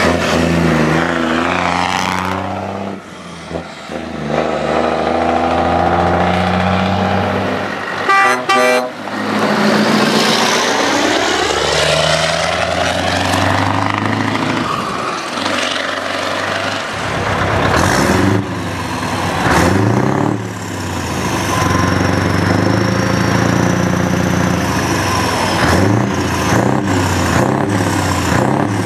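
Heavy diesel truck engines driving past one after another and changing pitch as they pull and rev. A truck air horn sounds briefly about eight seconds in.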